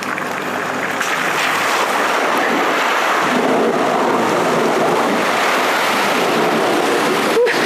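Toyota LandCruiser reversing through a muddy bog hole: water and mud sloshing and churning around the tyres over the engine. A short knock near the end.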